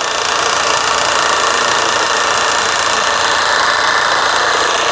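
Car engine idling under load, with the air conditioning running and the transmission in gear, a steady noisy hum that swells slightly at the start. The engine is shaking hard at idle, a vibration that gets worse with these loads on.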